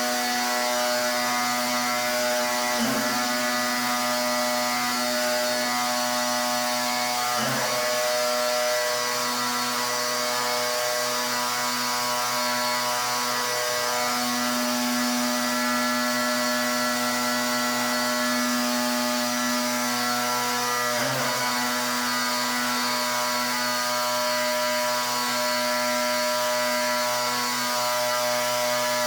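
Pressure washer running steadily: its motor and pump hum at a constant pitch over the hiss of the water jet. The tone breaks briefly three times.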